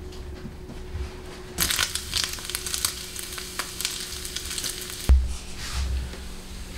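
Quarter-inch strips of simmered bacon sizzling and crackling in a frying pan as they brown. The sizzle starts about a second and a half in, and a single sharp knock comes near the end.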